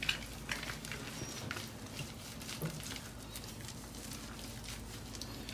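Bathwater dripping and lightly splashing in a tub as a wet kitten is held up over it: scattered small drips and splashes, irregular, over a faint low hum.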